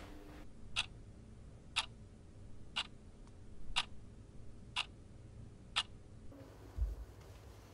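Quartz wall clock ticking once a second, six even ticks.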